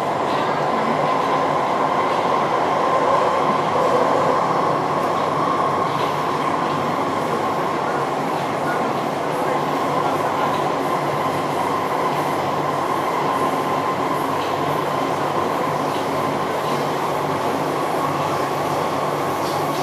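Metro train car heard from inside the cabin while running between stations. A steady running rumble carries a constant high whine, which is the unusual sound of train 1043.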